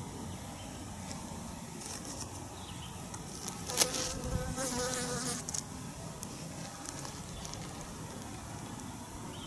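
A flying insect buzzing close past the microphone for about two seconds, a wavering hum, with a sharp tap near its start.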